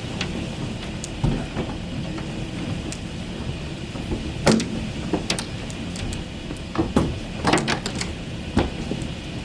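Heavy rain falling steadily, with a scattering of sharp taps and knocks from large drops striking a surface, several close together in the second half.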